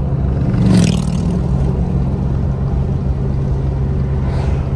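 Steady road and engine rumble heard from inside a moving car. An oncoming motorcycle passes in a brief loud rush about a second in, and an oncoming car passes more faintly near the end.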